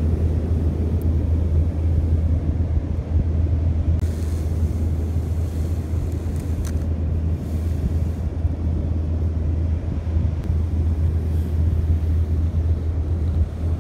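Steady low rumble of wind buffeting the microphone outdoors, with a faint hiss added from about four to seven seconds in.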